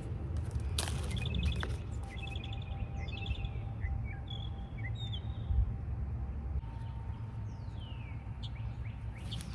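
Several birds chirping and calling: short rapid trills and quick downward-sliding calls scattered through, over a steady low rumble of outdoor background noise.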